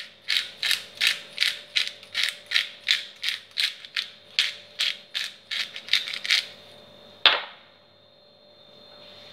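Hand-twisted black pepper grinder grinding with rapid ratchet-like clicks, about three a second, stopping about six seconds in. A single sharp knock follows about a second later.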